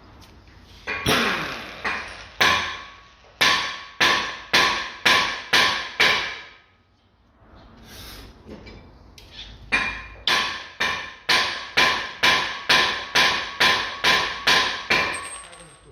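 Hammer blows on steel, struck about twice a second in two runs with a pause between, each blow ringing metallically: driving at a driveshaft seized in the front hub to knock it free.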